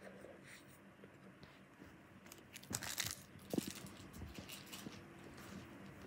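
Faint handling noises: soft rustling and crinkling with small clicks, loudest in a short cluster about three seconds in.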